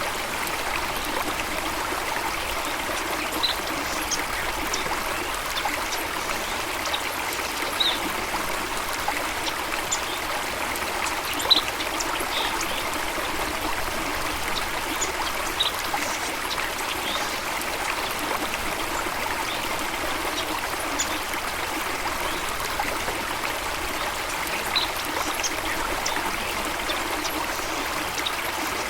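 Running water of a stream or small waterfall, a steady rushing trickle, with short high bird chirps now and then.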